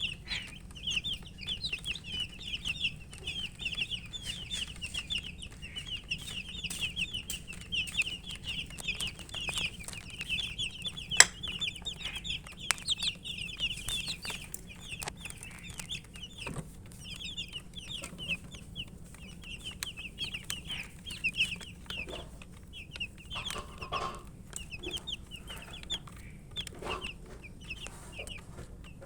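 Baby chickens peeping continuously in fast runs of short, high chirps, with occasional sharp clicks.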